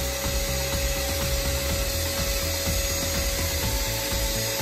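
A thin metal tool scraping and picking at crusty salt buildup around a cylinder bore of a Yamaha 40 hp two-stroke outboard block, in quick, uneven strokes, with a faint steady hum behind it.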